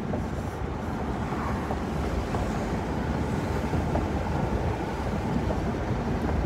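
Steady road and engine noise inside a car's cabin while driving, a low rumble with an even rush of air over it.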